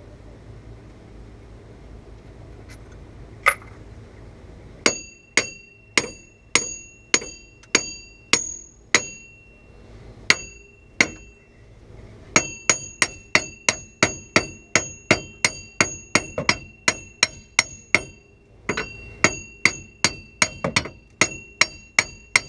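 Hammer blows on the rust-seized front wheel hub and bearing assembly of a 1994 Camaro Z28, knocking it loose. The blows come in runs of about two a second, each with a high metallic ring. Rust has stuck the hub in place.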